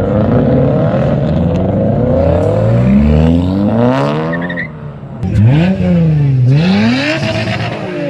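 Performance cars accelerating hard, one after another, their engines revving up in a long rising climb. After a short drop about five seconds in, an engine is revved sharply up and down twice.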